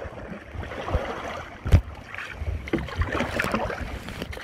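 Canoe paddles dipping and splashing in river water, with a few sharp knocks, the loudest a little under two seconds in.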